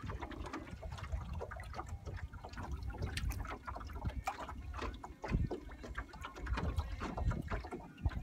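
Wind buffeting the microphone with small waves lapping and slapping against the hull of a small metal jon boat, giving a low steady rumble and irregular knocks.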